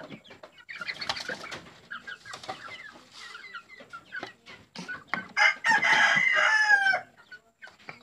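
Chickens clucking among scattered knocks and rattles of hands working at a wooden, wire-mesh coop. About five seconds in, a rooster crows loudly for about a second and a half.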